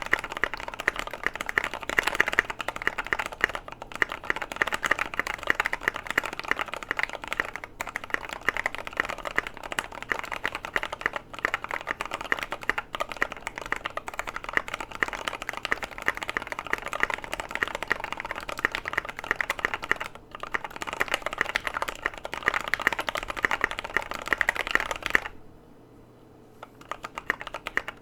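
Fast, continuous typing on a mechanical keyboard: lubed Gateron Yellow linear switches in a KBD75v2 with a polycarbonate plate, foam-dampened case and MT3 keycaps. Near the end the keystrokes stop for about a second and a half, then start again.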